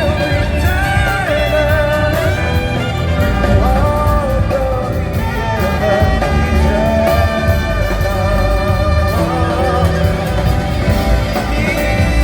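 A band playing live with a lead singer: a wavering sung melody over continuous instrumental backing.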